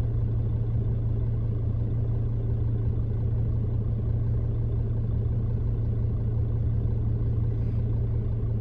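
Steady road and engine rumble of a moving car heard from inside the cabin, a constant low hum with no changes.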